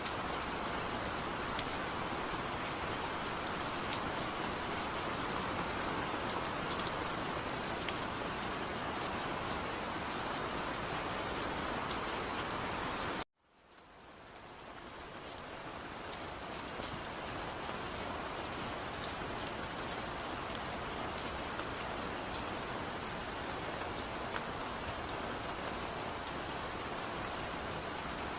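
Steady rain falling, with faint scattered drop ticks. About halfway through, the sound cuts out abruptly for a moment, then fades back in over a few seconds to the same steady rain.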